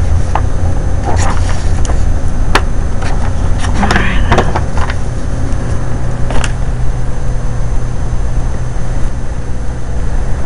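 A steady low rumble with several short knocks and rustles as a paper sketch pad and a handheld camera are moved about. The knocks are most frequent about four seconds in.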